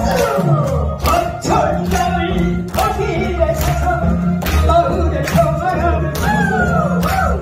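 Trot song sung live into microphones over an amplified backing track with a steady beat, with the audience clapping along.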